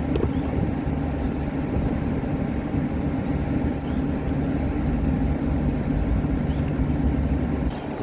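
Steady low mechanical drone that eases off just before the end.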